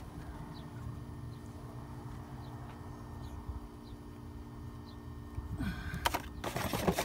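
Steady low hum, then a short run of light clicks and rattling near the end as the rear brake caliper is handled.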